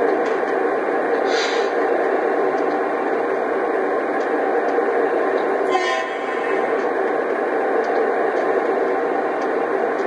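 Legacy RailSounds of a GE AC6000CW diesel, played from an O-scale model locomotive's speaker: a steady diesel engine rumble with the locomotive standing still. Two short hisses break in, about a second and a half in and again near six seconds.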